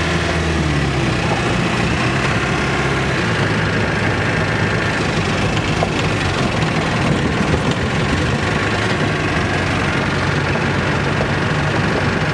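Vehicle engine running with steady road noise, heard from inside the cab while driving on a dirt road. About a second in, the engine note drops, then rises again.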